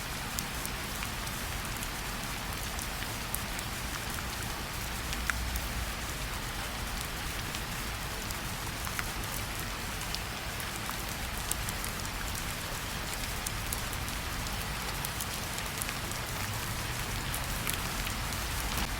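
Steady rain falling on a surface, with scattered individual drops ticking sharply through it.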